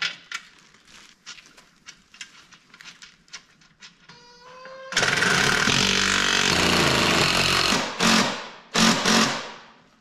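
Cordless impact driver spinning up with a rising whine, then hammering for about three seconds as it runs a bolt on a seat frame, followed by two short bursts of hammering. Before it starts there are light clicks of metal parts being handled.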